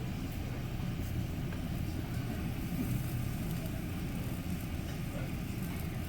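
A steady low rumble with a faint background hiss.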